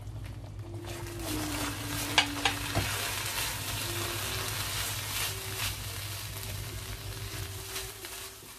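Saffron milk sizzling as it hits the hot barfi mixture in a nonstick frying pan, then a silicone spatula stirring and scraping through the thickening mixture. A couple of sharp clicks come about two seconds in.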